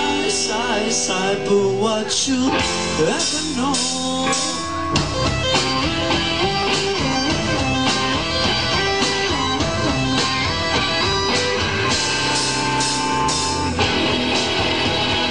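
Live rock band playing, with guitar and drum kit, recorded from the audience; a wavering lead melody stands out over the first three seconds or so.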